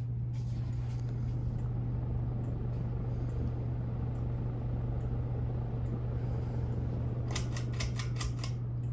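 Casablanca Lady Delta ceiling fan running steadily on medium speed in reverse, with a steady low motor hum and the whoosh of moving air. A quick run of clicks comes near the end.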